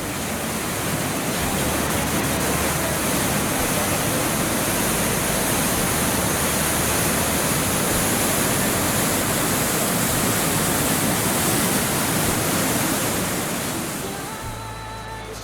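Waterfall of a mountain gorge stream: a steady, loud rush of falling water that fades in at the start and fades out near the end.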